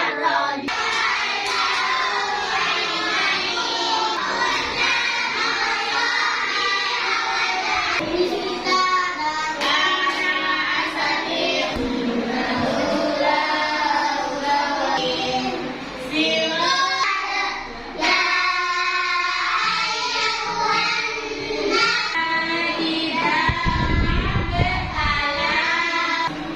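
A group of children singing together in unison, with a low rumble briefly underneath about three-quarters of the way through.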